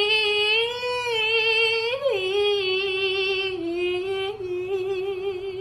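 A high voice holds one long sung 'aah' note with vibrato. The pitch bumps up briefly about two seconds in, then settles slightly lower.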